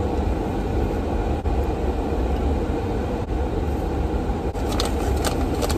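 Steady low rumble of a running car heard from inside the cabin, with a few light clicks near the end.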